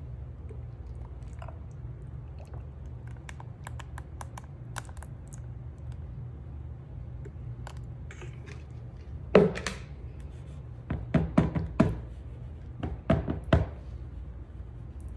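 A plastic bucket of white casting mix is knocked against a countertop. There is one loud thunk, then two quick runs of knocks, over a steady low hum.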